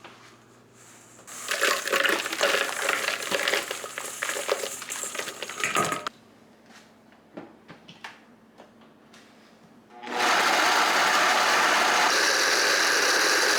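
Crushed Oreo cookie pieces clatter and rattle into a blender jar for about five seconds, followed by a few light clicks. About ten seconds in, the blender starts and runs steadily, grinding the cookies into fine crumbs.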